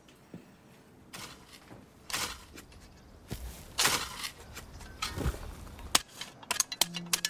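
A metal spade digging into loose soil: several separate scraping, crunching thrusts of the blade. A run of sharp ticks and a low held note come in near the end.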